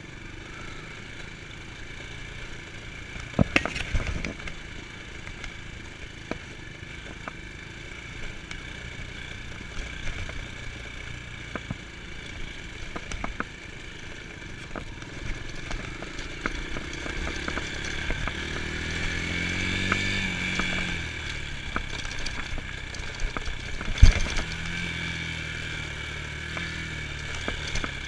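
Dirt bike engine running at moderate speed, its pitch climbing and then dropping about two-thirds of the way through, with rattles and clicks from the bike over rough ground. There are two sharp knocks, one a few seconds in and a louder one near the end.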